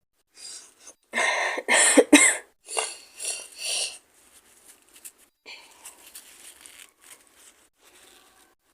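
A woman's coughing fit: one small cough, then two runs of about three loud coughs each, over roughly three seconds. Faint breathing follows.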